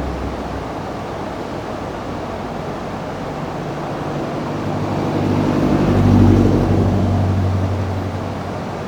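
Rushing river water, a steady noisy wash, with a low hum under it that swells to its loudest about six seconds in and then fades back.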